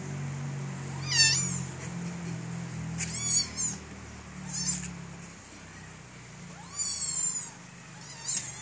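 Young kitten mewing: about six short, high-pitched mews spread across a few seconds, several of them falling in pitch.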